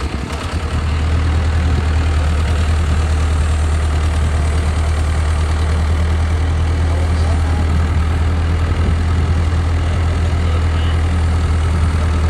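Mini excavator's diesel engine settling to a steady idle about a second after starting, with a strong, even low drone.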